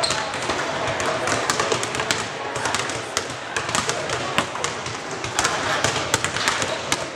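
A basketball bouncing and dribbling on a hardwood gym floor, many short irregular knocks, over a murmur of voices in an echoing gym.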